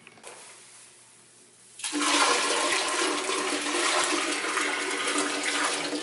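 Water rushing and splashing into a toilet bowl, starting about two seconds in, running steadily for about four seconds, then cutting off suddenly.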